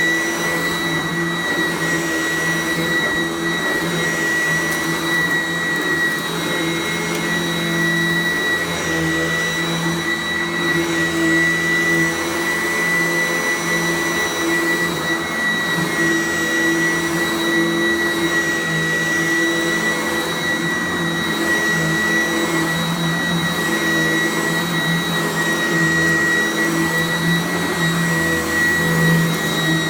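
Sanitaire SC888K upright vacuum cleaner running steadily: a constant high whine over a lower motor hum and airflow noise.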